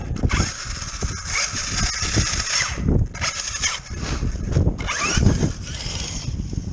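Arrma Kraton RC truck running in three bursts of throttle, its motor and drivetrain giving a loud hiss with a faintly rising whine, over a scatter of low knocks.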